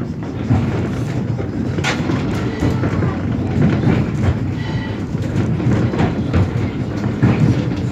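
Funicular car running down its rails: a steady low rumble with scattered clicks and knocks from the wheels and track.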